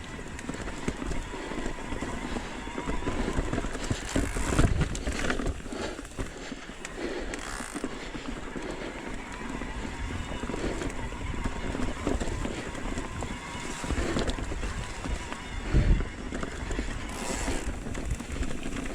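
Riding noise from an Orbea Wild electric mountain bike on a dirt singletrack: tyres on dirt and rock, with the bike rattling and a low wind rumble on the camera microphone. Two sharp knocks stand out, about four and a half seconds in and again near sixteen seconds.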